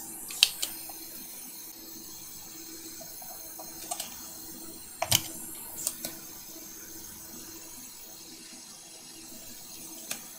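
Soldering-iron tips working solder out of circuit-board through-holes: a few short sharp clicks of metal on the board, the loudest about five seconds in, over a steady hiss.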